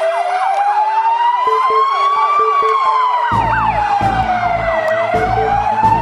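Two emergency-vehicle sirens sounding together: one slow wail rising and falling over about five seconds, and a faster sweep dropping in pitch several times a second. About three seconds in, music with a steady bass beat comes in beneath them.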